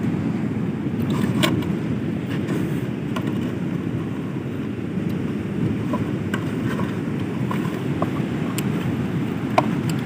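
Steady wind noise on the microphone mixed with sea surf, with a few faint, light clicks.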